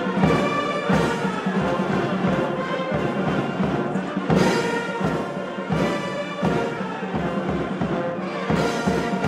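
Ceremonial band music: a steady drumbeat under held notes from wind instruments, played at the elephants' welcome.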